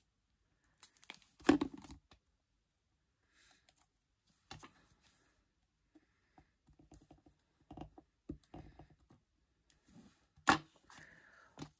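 Small handling sounds of papercraft work: faint clicks, taps and rustles of a glue bottle, a pick tool and small paper pieces on a cutting mat, with a sharper knock about a second and a half in and another near the end.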